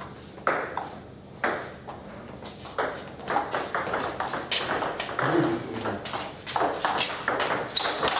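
Table tennis ball clicking off the bats and the table: a few spaced knocks, then a fast rally of quick exchanges from about three seconds in.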